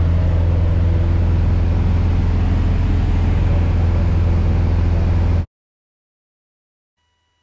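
Piper Cherokee's freshly overhauled four-cylinder Lycoming engine and propeller droning steadily in cruise, heard inside the cabin, during its break-in run. The sound cuts off abruptly to silence about five and a half seconds in.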